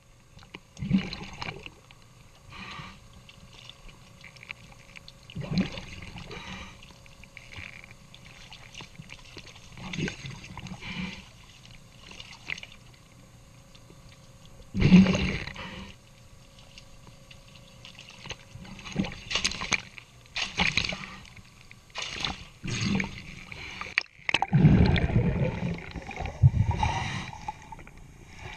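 Water sloshing and splashing at a boat hull's waterline in irregular surges while the hull is scrubbed by hand with a scrub pad. Near the end the surges come thicker and gurgle as the microphone goes underwater.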